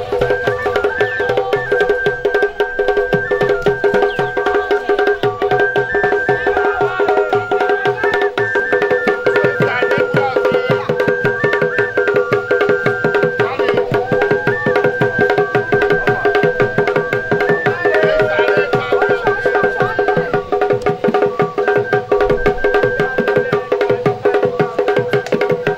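Traditional drum music: rapid, dense drumming under a high, piping melody that steps back and forth between a few notes over a steady held tone.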